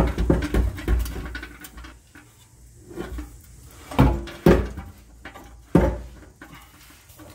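New metal exhaust pipe being twisted and pushed into the joint with the old pipe: a quick run of metal knocks and scrapes, then a few separate clunks.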